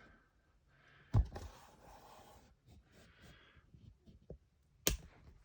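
Handling noises at close range: a knock about a second in, a couple of seconds of soft rustling, then a few small ticks and a sharp click near the end.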